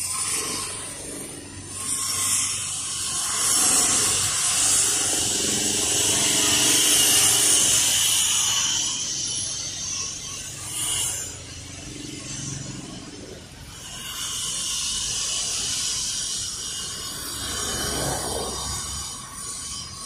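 Road traffic: a hiss of vehicle tyres on asphalt that swells and fades as cars pass, with a deeper rumble near the end.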